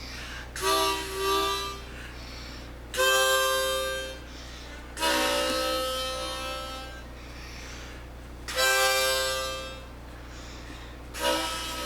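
Harmonica played as a string of held chords, about six blows of half a second to two seconds each, with short pauses between them.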